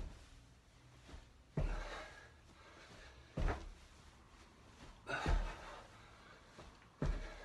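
Squat jumps: a person's feet landing on the floor with a dull thud, four landings about two seconds apart.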